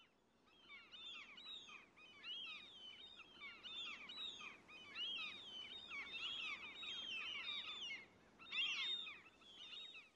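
A flock of birds calling together: many overlapping short, high chirps and whistles.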